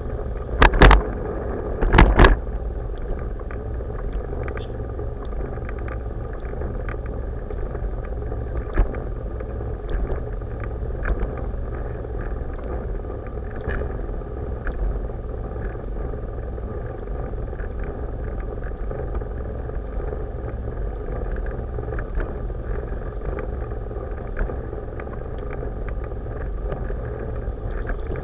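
Steady low rumble of a board's wheels rolling over pavement, heard from a camera mounted on the board, with small clicks as it crosses joints. Two loud knocks about one and two seconds in as it jolts over bumps.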